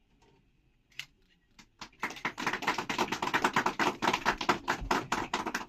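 A crowd of guests applauding, starting about two seconds in and carrying on as dense, steady clapping.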